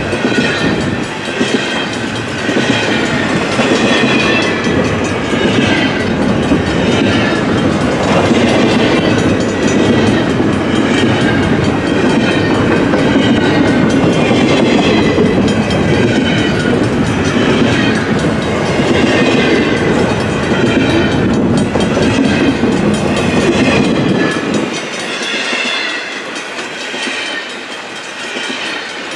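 Loaded double-stack intermodal container cars rolling past at track side: a steady rumble and clatter of wheels on the rails, with a wavering high-pitched squeal over it. The low rumble eases off near the end.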